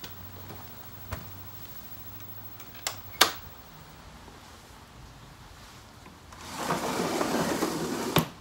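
Sharp clicks of a 1968 Philips Stabilimatic valve television's push-button switch being pressed to turn the set off, the loudest a little over three seconds in. Then a wooden cabinet door slides shut over the set, a scraping run of about two seconds that ends in a knock.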